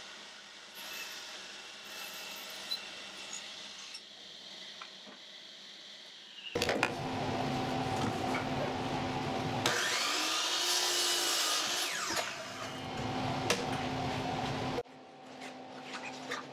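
Compound miter saw running. About three seconds after it starts, the blade cuts through a strip of wood for a couple of seconds, louder and hissier with a pitch that rises and falls. The saw's sound stops abruptly about two seconds before the end, after about six seconds of fainter shop noise at the start.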